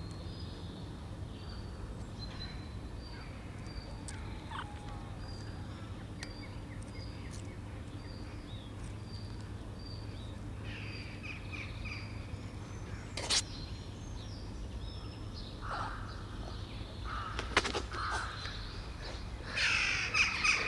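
Three-week-old kittens mewing, a few thin calls at first and then louder, more frequent mews near the end, over steady outdoor background noise. Faint high chirps repeat about once a second through the first half, and there is a single sharp click about halfway through.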